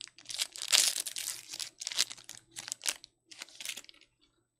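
A foil trading-card pack wrapper being torn open and crinkled in the hands, as a series of crackly rustling bursts that stop about four seconds in.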